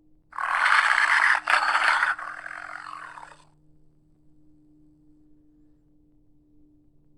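Creature roar sound effect for Andrewsarchus, made from Hyaenodon calls: one harsh, raspy call about three seconds long with a short break just over a second in, trailing off more quietly. A faint steady hum lies underneath.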